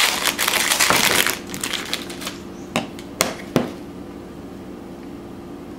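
Foil trading-card pack wrapper crinkling as it is torn open, for about a second and a half, followed by three light clicks as the cards are handled.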